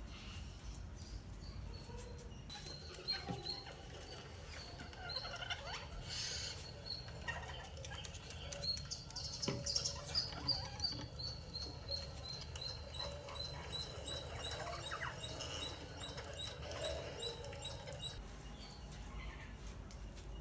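A pet parrot calling: a long series of short, high chirps repeated about twice a second, with a busier, louder stretch of calls in the middle.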